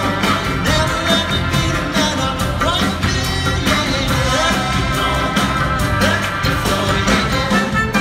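Live rock-pop band playing a song: guitars and bass over a steady drum-kit beat, with a sung lead vocal.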